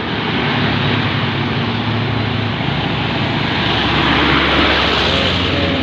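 A large bus passing close by on the road, its engine running over heavy road noise, swelling to its loudest about four to five seconds in.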